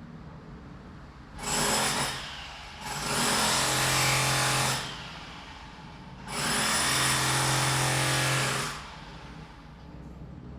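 Electric power drill motor spinning up and running at a steady speed in three bursts: a short one about a second and a half in, then two longer runs of about two seconds each. Between the bursts there is a steady background rumble.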